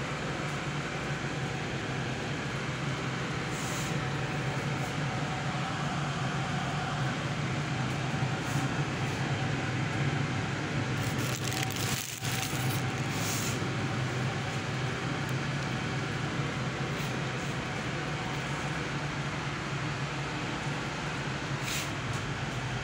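Steady low machine hum under an even hiss, with a few light clicks and rustles, busiest around the middle.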